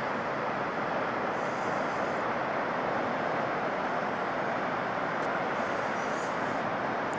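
Steady rushing of a large waterfall, water plunging in white cascades down a rock face, an even unbroken noise.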